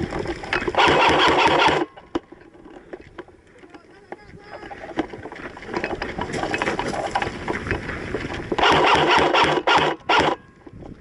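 Airsoft gun firing three bursts: one about a second long near the start, another about a second long later on, and a short one right after it.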